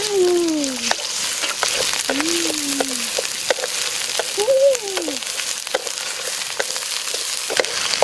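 Chili paste frying in oil in a wok, sizzling steadily, with scattered clicks of a wooden spatula stirring and scraping. Three long calls that rise and then fall, each about a second, sound over the sizzle near the start, about two seconds in and about four and a half seconds in.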